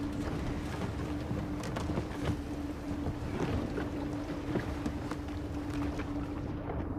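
Boat motor running steadily under way, a constant hum with wind and irregular splashes of water.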